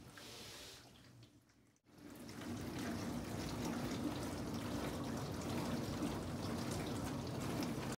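Water running steadily through a sink's plastic waste trap and pipework, starting about two seconds in.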